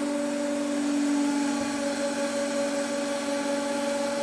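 Hydraulic press's pump and motor running with a steady hum and hiss as the ram travels down, with no change in pitch.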